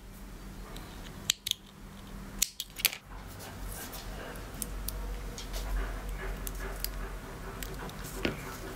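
Scissors snipping: a few sharp clicks in two clusters in the first three seconds, then faint scattered taps over a low steady hum.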